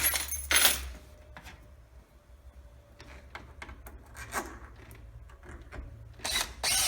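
Screws being driven back into a doorknob's mounting: short scraping rubs and small metal clicks of the hardware against the wooden door, with louder scrapes about half a second in and again near the end.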